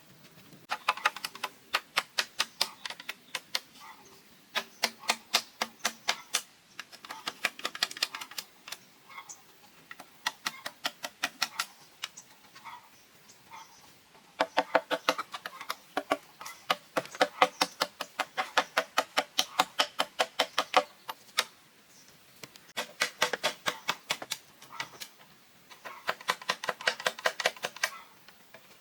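Runs of rapid, sharp strikes, about five a second, each run lasting a few seconds with short pauses between, like a blade or tool striking wood or bamboo.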